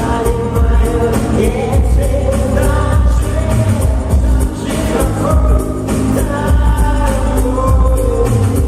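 Live pop song: a voice singing over a steady dance beat with a regular thumping kick drum and hi-hat ticks.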